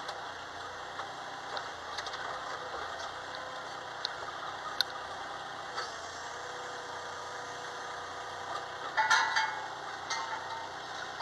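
Mini excavator running steadily while its arm and bucket are worked, with scattered light clicks and a brief louder burst about nine seconds in.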